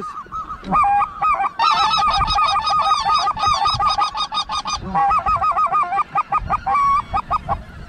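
Rapid, high goose calling: runs of short yelps, several callers overlapping, most crowded from about a second and a half to five seconds in and thinning out near the end.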